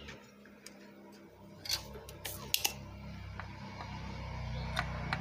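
Sharp clicks and light clatter of a soldering iron and a spring-loaded desoldering pump being handled and set to a circuit board, with a cluster of clicks about halfway and another click near the end. A low hum grows louder in the second half.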